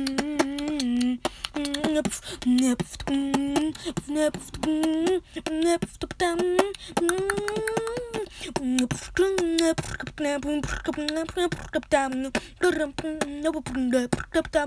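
A single voice beatboxing without words: mouth-made drum clicks and pops mixed with hummed notes that slide up and down in pitch.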